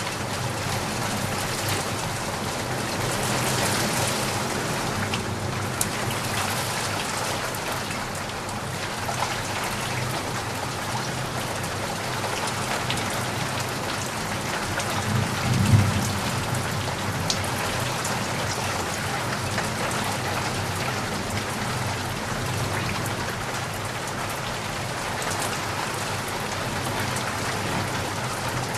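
Heavy rain falling steadily, with one short low rumble of thunder a little past halfway.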